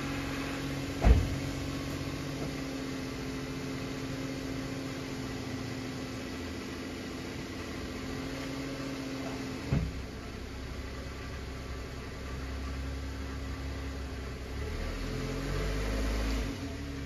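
A car engine idling steadily, with two sharp thumps, about a second in and about ten seconds in. The engine rumble swells briefly near the end.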